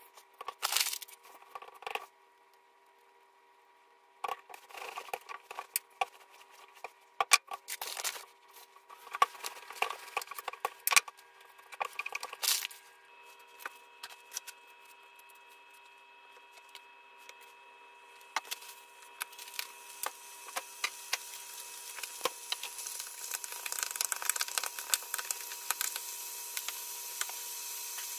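Kitchen prep sounds: scattered taps, clicks and knocks of hands, utensils and cookware in spurts, over a faint steady hum. From about twenty seconds in, a crackling hiss builds and grows steadily louder, as a pan on the electric stove starts to sizzle.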